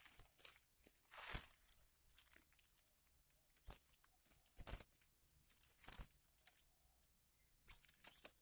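Irregular rustling and crackling, with sharp crackles every second or so and a cluster of them near the end.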